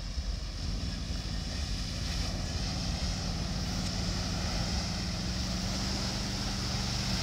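Ford Explorer SUV driving through shallow river water: its engine running steadily while water washes and splashes around the wheels, slowly growing louder as it approaches.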